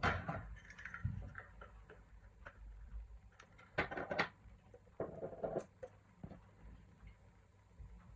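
Irregular light clicks, taps and short scraping strokes from small hard objects being handled, the busiest stretch about four seconds in.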